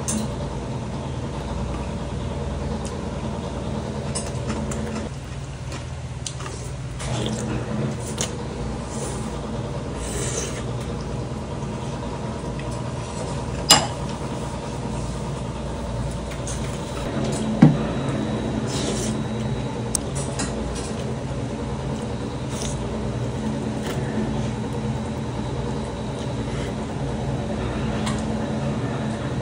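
A person eating jajangmyeon noodles with metal chopsticks from a metal bowl, with soft mouth and rubbing sounds over a steady background hum. About halfway through, the chopsticks strike the dishes twice in sharp clicks, and the second one rings briefly.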